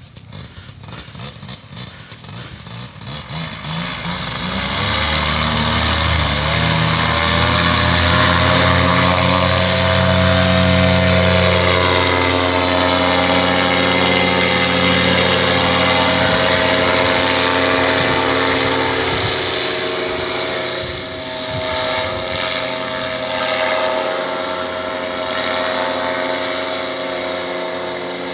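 Paramotor's two-stroke engine and propeller throttled up from a low idle, rising in pitch over the first few seconds to full power, which is typical of a powered-paraglider takeoff. It then runs steady at high power, with a brief dip about 21 s in.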